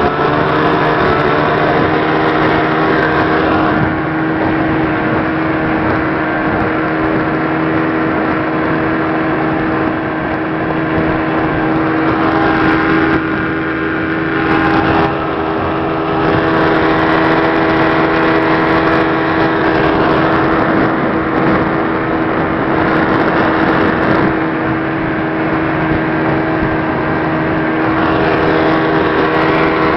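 1957 Evinrude Fastwin 18 hp two-stroke twin outboard running steadily under way, driving the boat across open water; its pitch holds nearly level.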